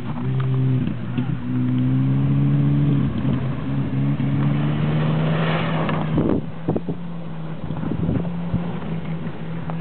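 Car engine at high revs as the car slides sideways on snow-covered ice, its note shifting early on and then holding steady. A rush of sprayed snow comes about five to six seconds in, followed by a few sharp knocks, after which the engine sounds quieter.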